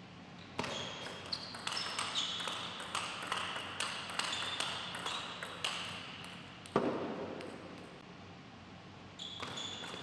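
Table tennis ball clicking quickly back and forth off the table and the players' bats in a rally, with short ringing pings, for about five seconds. A single louder thud comes about seven seconds in, and the clicks start again near the end.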